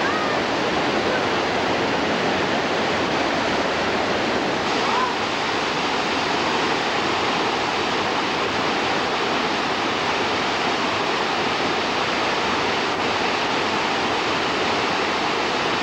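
Steady rushing roar of a waterfall, an even wash of falling water that holds a constant level throughout.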